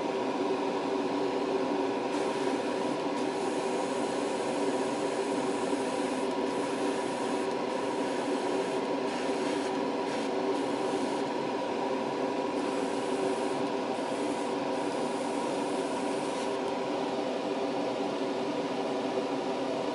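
Airbrush setup running: a steady motor hum under a hiss of air, the hiss dipping briefly now and then.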